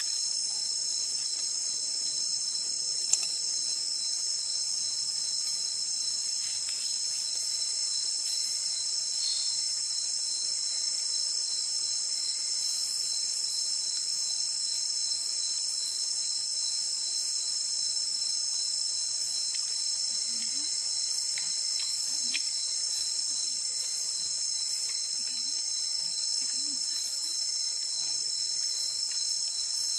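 Steady, high-pitched chorus of crickets and other insects calling without a break, with one sharp click about three seconds in.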